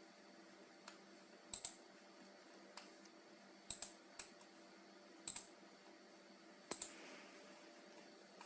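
Sharp clicks of a computer's input controls, mostly in quick pairs like double-clicks, about five times, over a faint steady hum.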